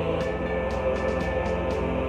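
Background music: slow, held chords over a low bass note that shifts a little after the start.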